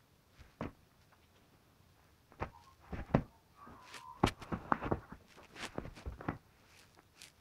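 A sphynx cat moving and pouncing right by the microphone: an irregular run of soft thumps and knocks starting about two seconds in, loudest around three and four seconds in, with a brief faint squeak among them.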